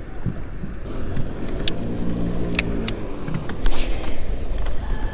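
Wind rumbling on the microphone with a few sharp clicks of fishing tackle and a short swish about three-quarters of the way in as a football jig is cast. A low hum rises and fades in the middle.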